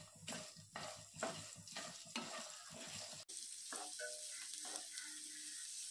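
Wooden spatula stirring sliced shallots and green chillies in a frying pan, scraping faintly about twice a second. From about the middle there is a steady faint sizzle as the shallots sauté in the oil.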